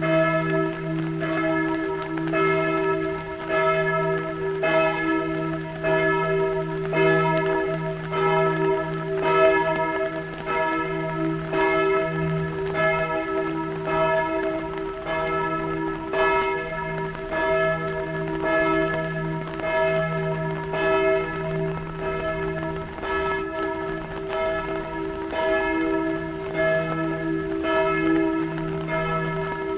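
Church bells pealing: several bells ringing together, their strikes overlapping in a continuous ringing.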